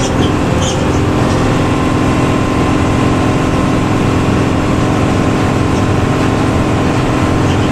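Intercity bus engine with a growling ('ngorok') exhaust running steadily: a constant drone with a steady hum.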